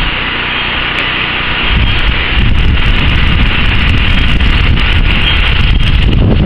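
Strong gusting wind buffeting the microphone with a heavy low rumble, a little softer for the first couple of seconds, then picking up again.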